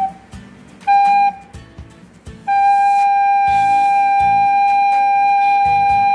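Plastic soprano recorder playing the note G (sol): one short note about a second in, then the same note held long and steady from about two and a half seconds in.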